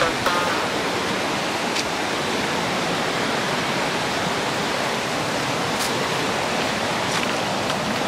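Steady rush of a shallow river running over rocks and a low weir, with a few faint clicks.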